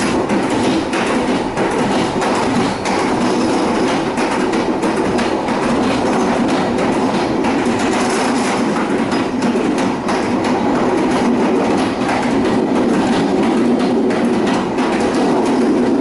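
Passenger train running steadily along the track: a continuous rumble of wheels on rails, with many small clicks and knocks throughout.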